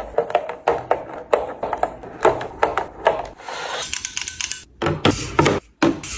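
Fridge-restocking handling noises: a quick run of taps, clicks and rubbing as containers and packages are picked up and set down, with a stretch of rustling about halfway through.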